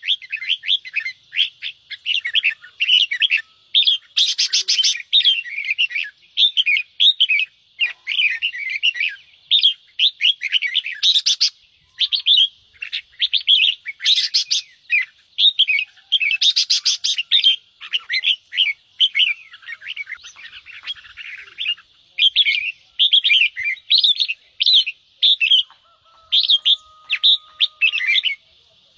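Red-whiskered bulbuls giving rapid, continuous excited chatter (the "ché" call), fast sharp chirps one after another, broken by a few harsh rattling bursts. This agitated chatter is what keepers play to fire up caged bulbuls.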